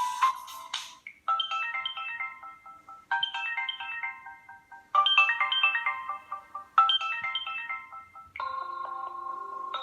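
Samsung Galaxy Y phone ringtones. One ends in the first second. Then a short phrase of quick notes stepping down in pitch plays four times, about every two seconds, and near the end a new ringtone with held notes begins.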